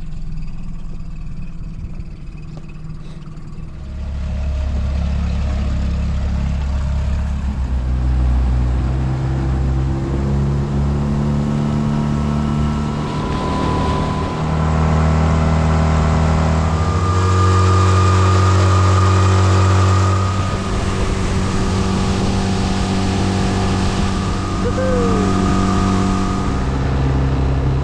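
Outboard motor of a small boat running underway, with water rushing and splashing along the hull. The engine note holds steady, then jumps to a new pitch every few seconds.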